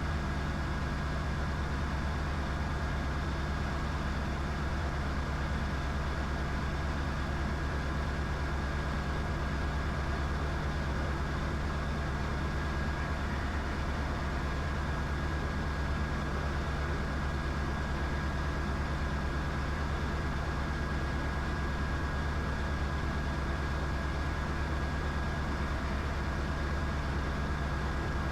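Diamond DA20's single piston engine and propeller droning steadily in cruise flight, heard inside the cockpit, with a faint steady high tone running underneath.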